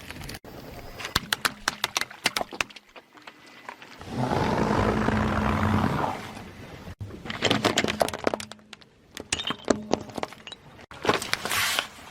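Objects crunching and crackling as a car tyre rolls over and crushes them, in several short cut-together clips. About four to six seconds in, a louder, steadier rumble takes over before the crackling returns.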